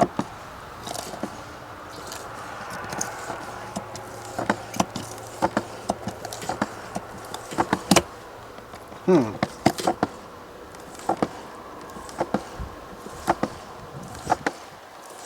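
Scattered sharp clicks and knocks of hand work on the mower and sealant jug, with a short falling squeak about nine seconds in.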